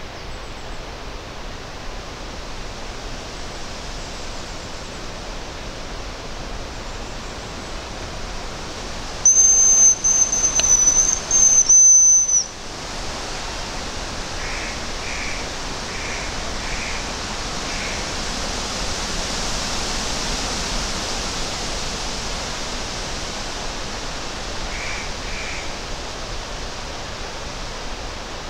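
Hazel grouse decoy whistle blown once, about nine seconds in: a high, thin, steady whistle of about three seconds with a short break near its end, imitating the grouse's call. Strong wind hisses steadily through the forest trees throughout.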